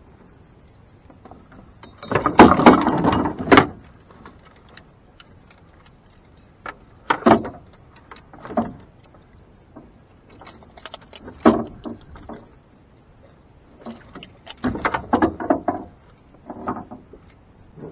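Irregular bumps, clunks and rustles of fish and gear being handled on the deck of a small boat, in a few bunched flurries with single knocks between.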